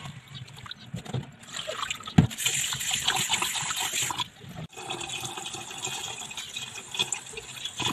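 Glutinous rice being washed by hand in a stainless steel pot: water splashing and sloshing as the grains are rubbed, with tap water running into the pot.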